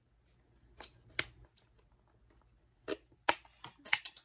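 Clear plastic sensory bottle filled with foam shapes, handled and shaken by hand: scattered sharp clicks and crackles of the thin plastic, a couple about a second in and a quick cluster near the end.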